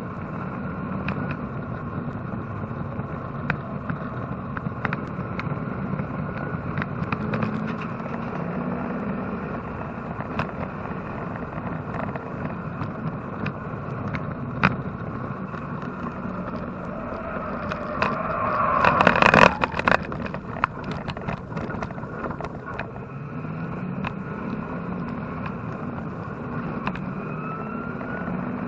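In-car sound of a Chevrolet-engine-swapped Porsche 944 race car running on track, the engine note rising and falling as it drives, with small rattles and clicks. About two-thirds of the way through comes a louder rising surge.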